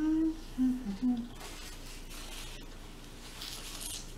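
A woman hums three short 'mmm' sounds while savouring a mouthful of food, the first one longest. Softer rustling follows, with a brief burst near the end as a paper napkin is wiped across her mouth.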